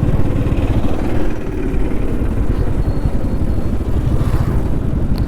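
Motorcycle engine running steadily while riding along a road, with a rapid low pulsing and road noise.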